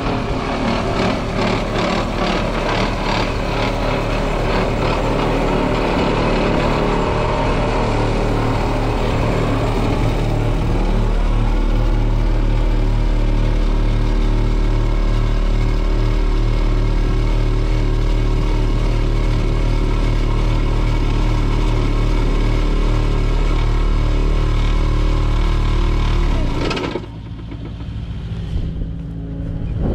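Kubota KX080 excavator running hard, powering a hydraulic vibratory plate tamper that vibrates a wooden trellis post down into the soil. A fast pulsing rattle rides on the engine for the first third, then the sound runs steady and drops away suddenly near the end.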